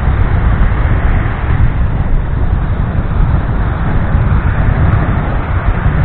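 Sea surf: small waves breaking and washing up on a sandy beach close by, with wind buffeting the microphone. A loud, steady rush with a heavy low rumble that swells and eases a little.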